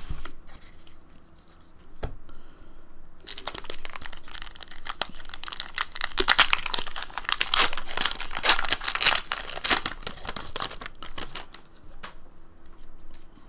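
Foil wrapper of a Pokémon card booster pack being torn open and crinkled. The crackling rustle starts about three seconds in and stops near the end.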